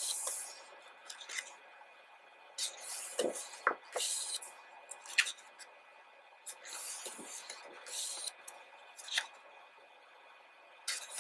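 Pages of a large photobook being turned by hand: several swishing rustles of paper, with a few light taps and flicks between them.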